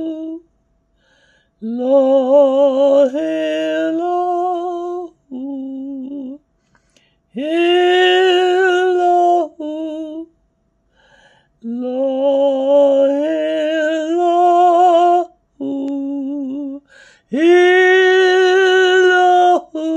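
A man singing solo and unaccompanied: slow phrases of long held notes, some wavering, separated by short pauses.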